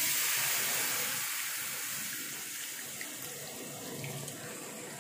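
Tamarind water poured from a steel bowl into a hot pan of oil-fried ginger, green chilli and chilli powder. It sizzles and hisses as it hits the hot oil, the hiss slowly dying down as the liquid fills the pan.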